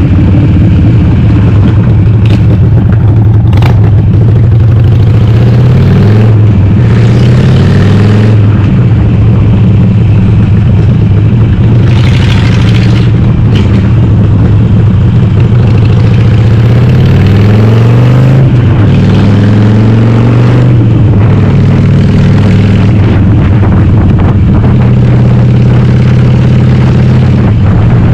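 Harley-Davidson Sportster 883R V-twin, converted to 1200, running loud through Cobra Speedster 909 pipes with the dB killers removed, heard onboard while riding. The engine note rises and falls with throttle and gear changes, with a brief rush of wind noise about twelve seconds in.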